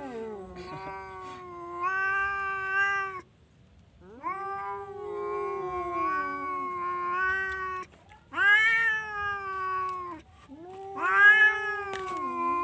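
Orange domestic cat yowling: about four long, drawn-out calls, each holding a steady pitch, with short breaks between them.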